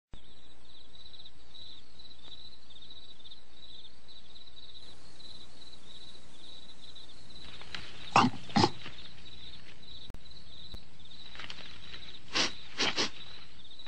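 Cartoon night-time soundtrack of crickets chirping steadily, broken by short, sharp sounds from a cartoon dog: two close together about eight seconds in and three more near the end.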